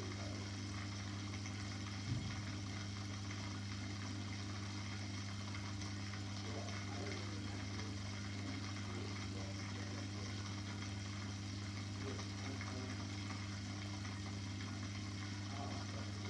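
Aquarium pump humming steadily, with a faint water-bubbling hiss over it; a brief soft thump about two seconds in.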